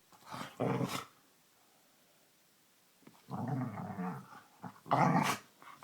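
A pit bull's playful growling vocalizations in three bursts, the first short, then a pause of about two seconds before two longer ones.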